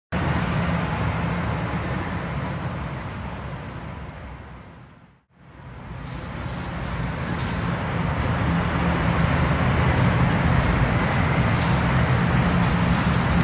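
Heavy mining dump trucks running, their diesel engines making a steady low engine noise with hiss. The sound fades almost to nothing about five seconds in, then comes back and stays steady.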